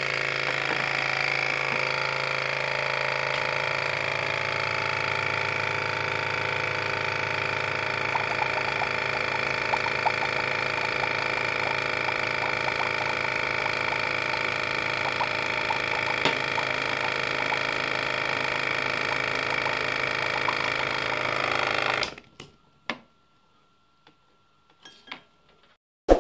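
Homemade diaphragm air pump, a small DC motor on a 9 V battery driving a balloon diaphragm in a bottle cap, running with a steady hum, with faint bubbling ticks from its air line in a glass of water. The hum cuts off suddenly near the end, followed by a few faint clicks.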